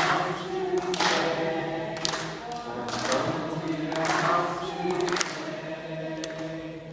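Children's choir singing an anthem, holding long notes between short breaks in the line.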